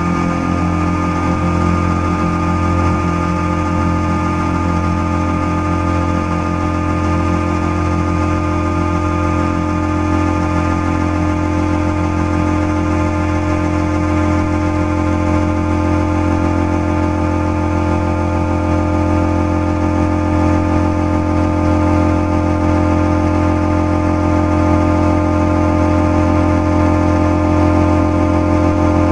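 Live electronic drone music played from a laptop: a loud, unchanging low hum with many steady tones layered above it, swelling slightly louder in the last few seconds.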